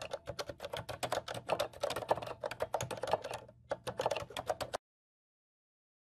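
Typing on a Kinesis Advantage2 Quiet LF keyboard with Cherry MX Red Silent (quiet red) linear key switches: a fast run of soft, damped keystrokes with a brief pause about three and a half seconds in. It cuts off about five seconds in.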